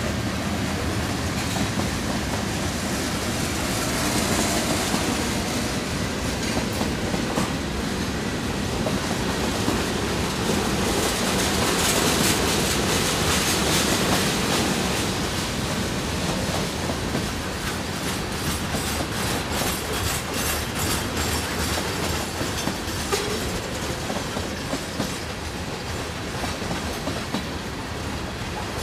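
Freight cars of a manifest train rolling past, steel wheels running on the rails in a steady, loud noise, with a run of rhythmic clickety-clack as wheels cross rail joints about two-thirds of the way through.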